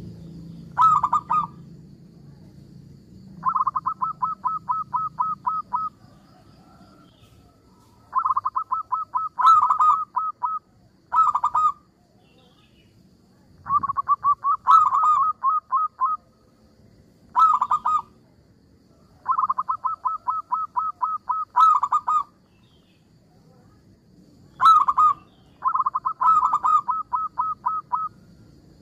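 Local zebra dove (perkutut) singing about nine phrases of rapid staccato cooing notes, each phrase one to two and a half seconds long, with short pauses between them. Several phrases open with a sharper first note.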